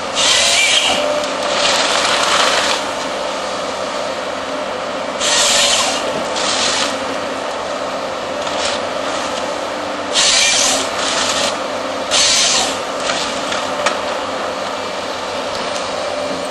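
AFM 58 harvester head on a Volvo excavator processing timber: over the steady drone of the excavator's engine and hydraulics come about six short bursts of loud rasping noise as wood is fed, stripped and cut.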